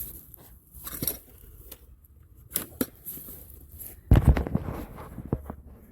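Woody brush crackling and snapping in scattered clicks, with a louder cluster of thumps and cracks about four seconds in.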